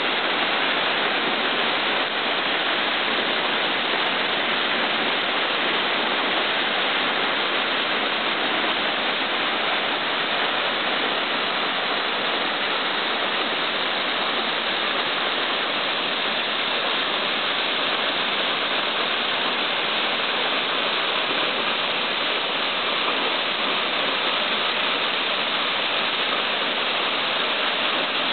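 Double-drop waterfall: a steady rush of falling water, more hiss than rumble.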